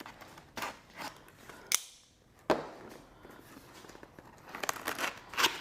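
A cardboard box being opened and handled: scattered snaps, clicks and rustles of cardboard, the sharpest just before two seconds in.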